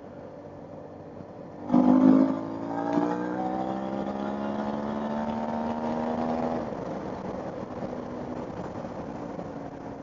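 Suzuki V-Strom 650's V-twin engine, fitted with a Black Widow aftermarket exhaust, opening up hard under acceleration about two seconds in. It shifts up once, then its pitch climbs steadily until the throttle is closed near seven seconds in, leaving the bike cruising.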